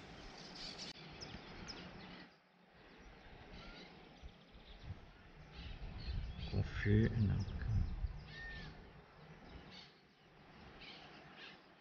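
Faint birds chirping and calling over a low outdoor rumble, with a brief low hum-like sound a little past halfway through.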